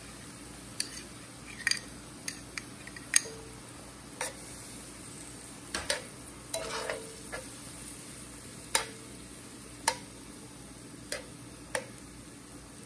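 Metal tongs stirring in a cast-iron skillet, with sharp irregular clinks of metal on iron about once a second. Beneath them is a faint steady sizzle of onions and olives simmering in white wine.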